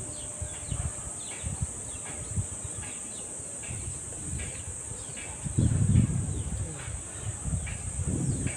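Insects droning steadily at a high pitch, with low rumbles on the microphone that are strongest about six seconds in.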